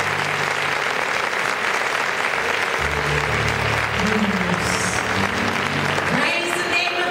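An audience applauding steadily over low band music. Near the end a different piece of music with sliding pitched notes comes in.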